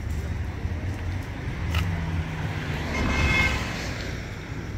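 Road traffic: a motor vehicle's engine rumbling steadily, swelling louder about three seconds in as it passes.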